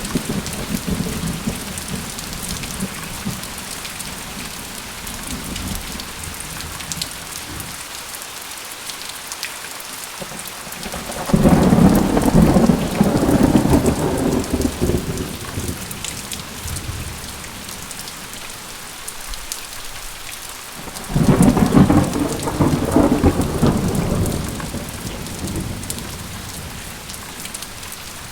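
Steady rain with two rolls of thunder, the first starting about 11 seconds in and the second about 21 seconds in, each rumbling for several seconds before fading back into the rain.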